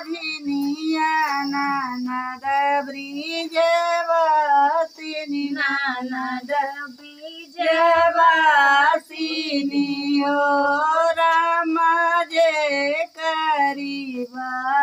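Women singing a sohar, a North Indian folk song for a child's birth, in long held and bending lines with no instruments. A steady faint hiss sits behind the voices.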